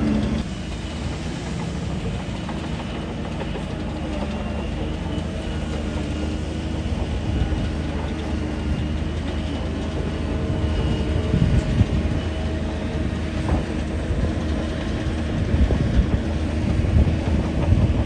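Shantui DH17 bulldozer's diesel engine running steadily under load, with the clanking and rattling of its steel crawler tracks. Heavier clanks come around the middle and toward the end.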